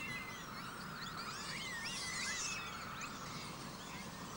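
Faint birds chirping and twittering: many short, quick, rising and falling whistled calls that overlap, over a steady low hiss.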